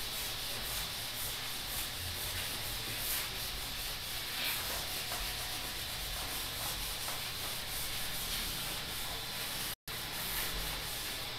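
A handheld whiteboard eraser is scrubbed across a whiteboard in repeated strokes, wiping off marker writing. The sound is a steady rub that cuts out for an instant near the end.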